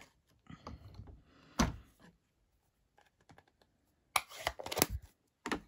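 Short hard plastic clicks and knocks as a clear acrylic stamp is lifted off the Stamparatus and set down on the craft mat: one sharp click about a second and a half in, then a quick run of clicks about four seconds in.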